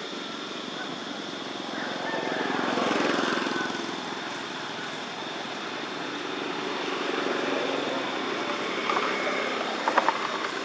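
A motor vehicle's engine passing, growing louder and fading again a couple of seconds in, over steady outdoor background noise; a few sharp clicks near the end.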